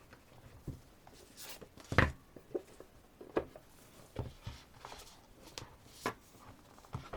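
Handling of a CD album and its packaging: scattered light knocks, clicks and paper rustles as the CD and album are put back into their box, with one louder knock about two seconds in.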